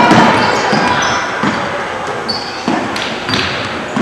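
Basketball being dribbled on a hardwood gym floor: a few irregular bounces, echoing in the hall, with short high sneaker squeaks and background voices.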